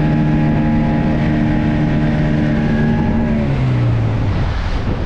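Speedboat engine running at a steady pitch, then throttled back about three and a half seconds in, its pitch dropping and the engine sound fading out under wind and water noise as the boat slows.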